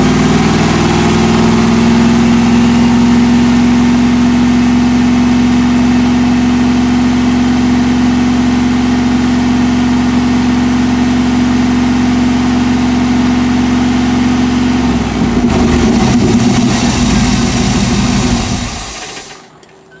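Chevy 5.7 L V8 engine held steadily at raised RPM. The engine is running lean from a large intake vacuum leak, and its fuel trims fall back as the revs go up. About 15 s in the engine note changes, and near the end it dies away.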